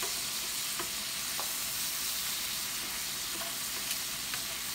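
Thin egg-and-flour-coated chicken cutlets shallow-frying in hot oil in a skillet: a steady, high sizzle. A few light clicks of metal tongs against the pan come as the cutlets are turned.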